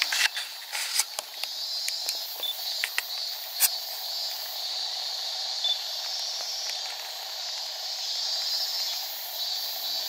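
Steady outdoor chorus of insects singing, a continuous high buzzing hiss. A few sharp clicks break through in the first four seconds.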